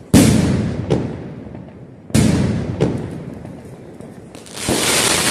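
Aerial firework shells bursting: two loud bangs about two seconds apart, each fading out with an echoing rumble, then a dense crackling near the end.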